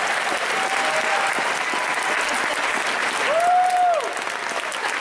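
Audience applauding steadily, with one held cheer from the crowd that rises, holds and falls about three seconds in.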